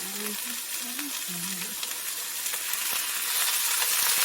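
Chicken pieces frying in a hot pan, a steady sizzle that grows louder about three seconds in, with a few light ticks.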